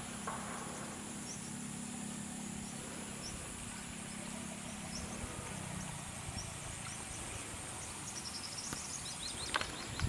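Outdoor ambience: a steady low hum that shifts about halfway through, a faint high steady whine, short high chirps, and a few sharp knocks near the end.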